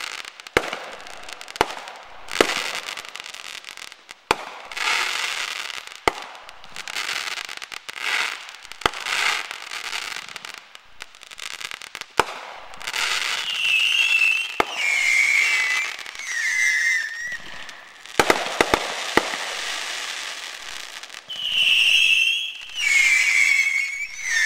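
Fireworks going off, with repeated sharp bangs and crackling. In the second half, a high wavering tone steps down in pitch over a few seconds, twice.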